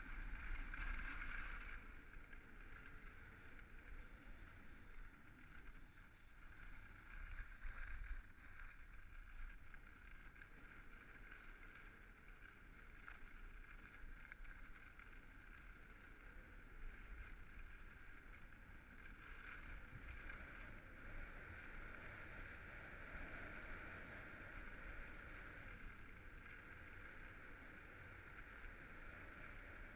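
Skis sliding over groomed snow, a steady hiss, with low wind rumble on the microphone; it is louder in the first two seconds and again around eight seconds in.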